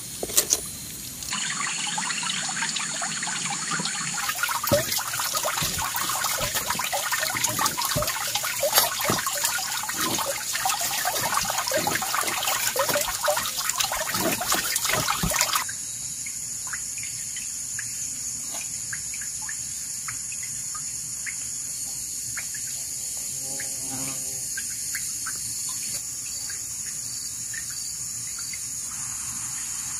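Water splashing and pouring, full of small splashes and patters, which stops suddenly about halfway through. A steady high insect drone continues throughout, with a short chirping call later on.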